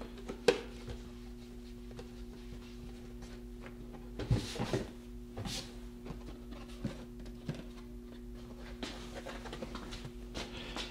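Light handling sounds of a plastic welding helmet being wiped with a cloth and turned over: a sharp click about half a second in, then a cluster of knocks and rustles around four to five seconds in and a few small ticks, over a steady low hum.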